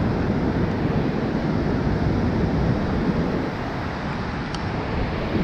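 Ocean surf breaking and washing up a sandy beach, mixed with wind buffeting the microphone.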